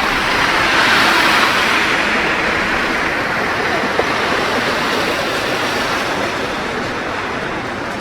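City street traffic in snow: the hiss of a vehicle's tyres on the wet, slushy road swells about a second in and fades slowly as it passes.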